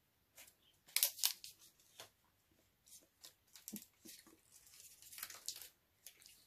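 Faint, scattered crackles and clicks of someone chewing bubblegum and handling its wrapper, loudest about a second in and again around five seconds in.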